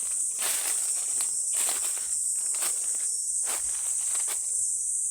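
Footsteps rustling through forest undergrowth at an uneven pace, stopping about four and a half seconds in, over a steady high-pitched chorus of insects.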